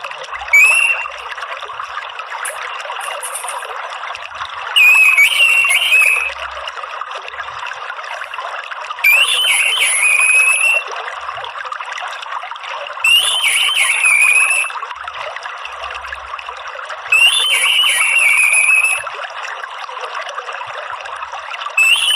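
Orange-headed thrush phrase repeated about every four seconds, each one to two seconds long, over a steady trickle of running water.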